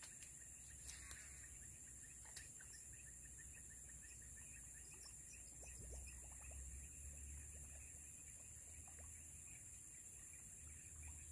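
Near silence: faint outdoor ambience with a steady high-pitched hum, a low wind rumble that swells now and then, and a few light clicks early on.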